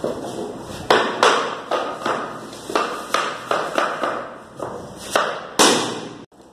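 Wooden floor planks being knocked together with a wooden tapping block to close the joints: about a dozen sharp knocks at an uneven pace, each with a short ring. The sound cuts off suddenly near the end.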